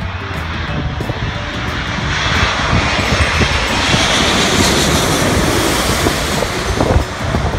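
Airbus A380's four turbofan engines on landing approach, passing low overhead: a broad rushing jet noise with a high whine that swells to its loudest around the middle, then begins to fade.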